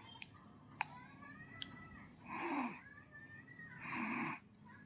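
A baby snoring: two snoring breaths about a second and a half apart, in the second half. A few sharp clicks come before them.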